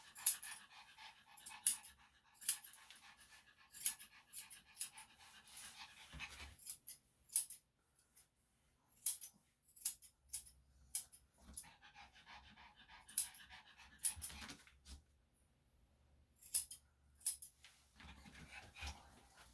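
A Yorkshire Terrier panting and whining in stretches while its feet are groomed, over a string of sharp, irregular clicks.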